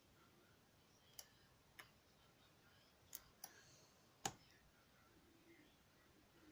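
Faint metallic clicks of a lock pick working the wafers of a Yale wafer lock under a tension tool: five separate clicks, the loudest about four seconds in.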